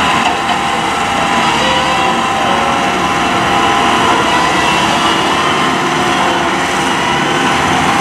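A machine running steadily, a dense mechanical noise with a faint high whine that wavers slightly.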